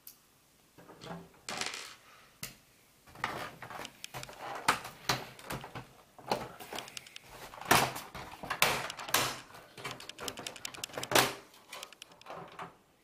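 Plastic casing panels of an all-in-one desktop computer being handled and worked loose: a run of irregular clicks, knocks and short scrapes.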